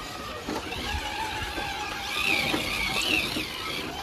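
Electric motors and gear drives of radio-controlled rock crawlers whining. The pitch rises and falls, loudest a little past the middle, as they crawl over rock.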